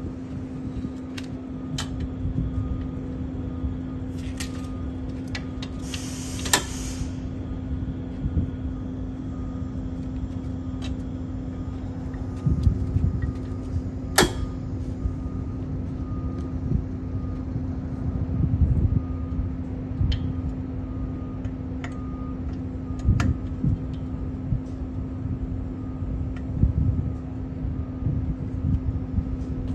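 A steady low hum with rumble beneath it, broken by scattered clicks and knocks. There is a brief hiss about six seconds in and a sharp knock about fourteen seconds in.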